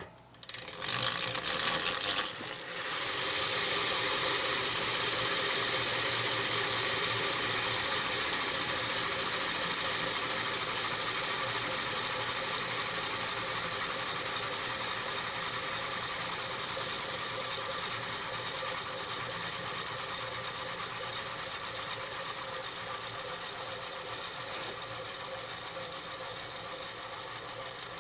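BMX racing bike's rear wheel spinning on its Shimano freewheel hub: a steady mechanical whir that is louder for the first couple of seconds, then holds and slowly gets quieter.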